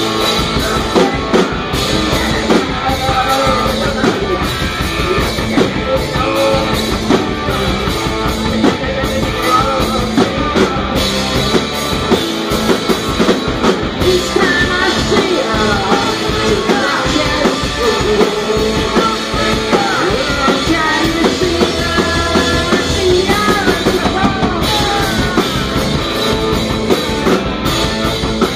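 Punk rock band playing live: bass guitar, electric guitar and drum kit, with a wavering lead line over them.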